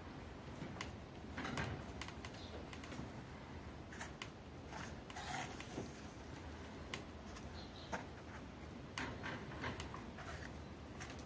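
Faint, scattered light clicks and short rustles: a cat rubbing its head against a hand and the bars of a white wire crate while it is stroked.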